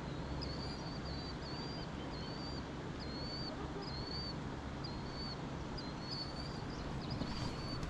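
A small bird calling over and over, short high chirps about one and a half a second, over a steady low background rumble.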